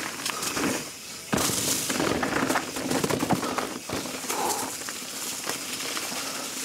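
Dense, irregular crackling and snapping of dry leaves, twigs and gravel on a trail, getting louder about a second and a half in.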